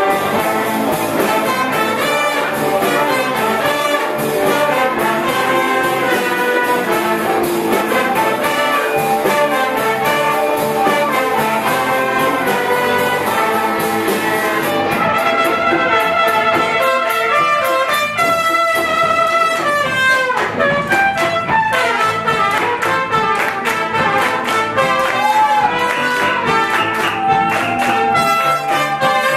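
Live brass band playing: trumpets, saxophones, sousaphone and drum kit together. The full band is dense for about the first half, then the texture thins and a single melodic line stands out over the accompaniment.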